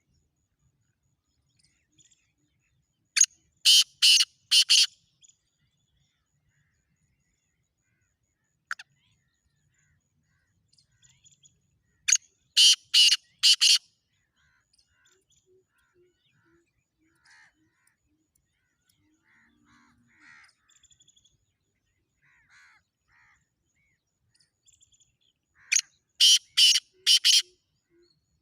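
Black francolin calling: three loud phrases of four or five harsh, grating notes each. The first comes a few seconds in, the second about twelve seconds in, and the third near the end. Faint chirps of other birds fall between them.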